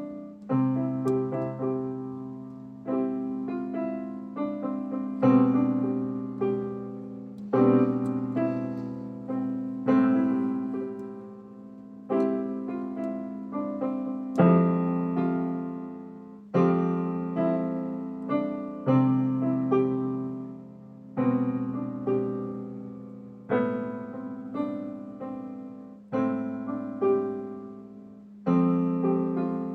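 Beginner playing simple power chords on a piano, striking a new chord about every two seconds and letting it ring out, with a low bass note under each.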